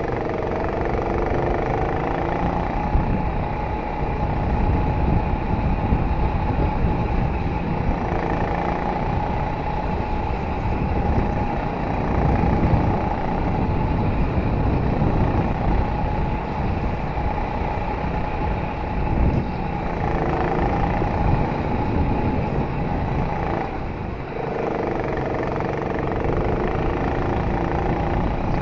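Go-kart running at racing speed, heard on board: the motor's tone rises and falls through the corners over a steady rush of wind and track noise.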